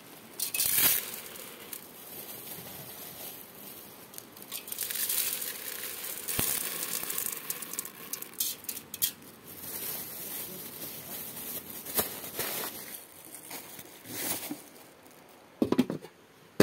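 Irregular rustling and crinkling handling noise, with two sharp clicks about six and twelve seconds in.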